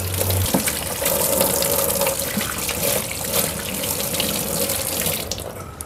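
Kitchen tap running into a stainless steel sink, the water splashing as eggplants are rinsed under it. The flow stops shortly before the end.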